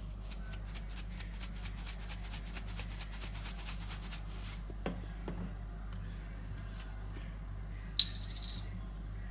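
Kitchen utensil work: a quick run of short, sharp scraping strokes, about five a second, for roughly four seconds. Near the end comes a single loud, sharp clink that rings briefly.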